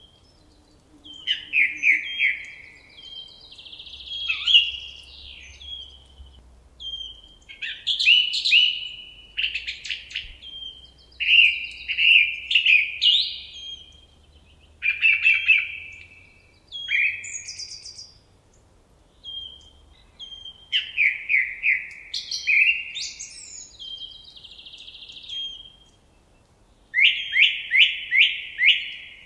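Songbirds singing: short, high-pitched phrases of quick notes, many falling in pitch, repeated every second or two with brief pauses between.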